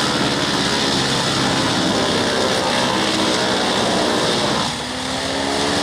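Vermeer HG6800TX horizontal grinder running, its engine and cutting drum making a loud, steady mechanical drone that dips briefly about five seconds in, then picks up again.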